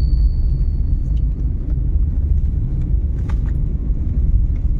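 Car driving on a road, a steady low rumble of engine and tyres.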